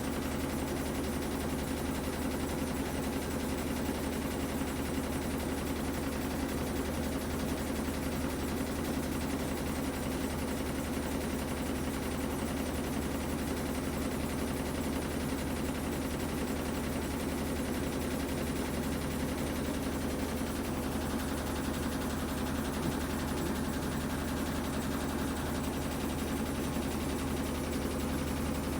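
Whirlpool top-loading washing machine running steadily in its drain and spin cycle: an even motor hum with steady low tones and no change through the stretch.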